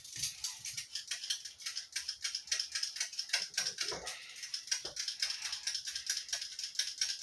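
Potato peeling by hand: a blade scraping the skin off a raw potato in quick, rhythmic strokes, several a second.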